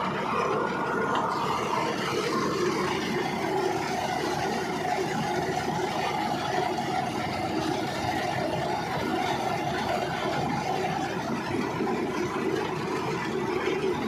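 Tractor engine running steadily while a front-mounted reaper cuts standing rice.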